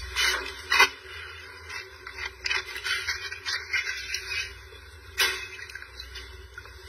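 Water splashing and sloshing in a metal basin as hands reach in and lift out a freshly quenched lump of gold, with a few sharp splashes near the start and about five seconds in.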